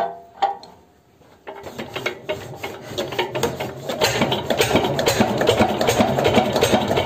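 A click as the top of a toy model diesel engine is pressed, then from about a second and a half in a fast mechanical rattle that builds over a couple of seconds and runs on steadily: the model engine's small motor starting up and running.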